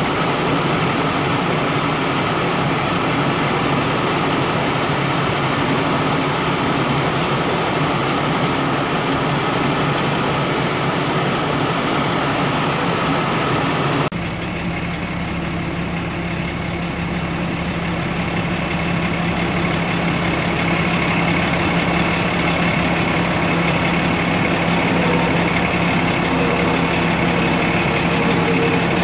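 Fire truck's diesel engine idling steadily. About halfway through, the drone changes abruptly to a slightly quieter, lower steady hum.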